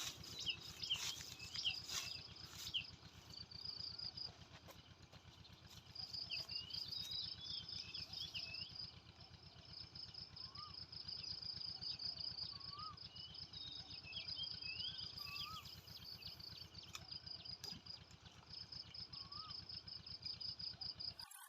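Faint outdoor insect chorus: a high, rapid pulsed trill that keeps starting and stopping for several seconds at a time, with scattered short bird chirps over it.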